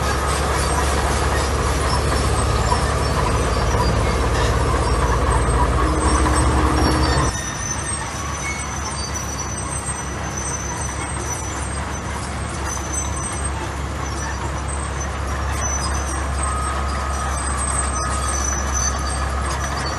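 Heavy diesel earthmoving machinery running steadily. About seven seconds in the sound changes abruptly and goes on a little quieter.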